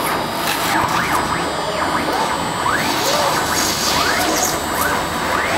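Multi-axis CNC router milling a wooden block: a continuous cutting and machine din, laced with quick rising and falling whines.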